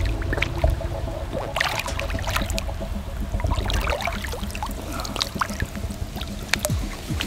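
Water splashing and sloshing irregularly as a hooked carp thrashes and rolls at the surface in the shallows while being drawn in to land.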